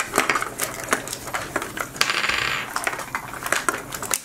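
A Zuru 5 Surprise Mini Brands capsule ball being handled and opened: quick clicks and light clatter of small hard plastic parts, with a brief rustle of its wrapper about two seconds in.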